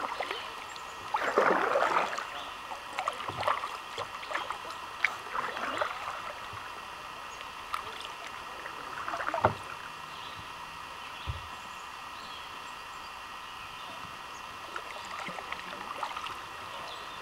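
Kayak paddle strokes dipping and splashing in calm river water, irregular and unhurried, the loudest splash about a second in and another near nine seconds.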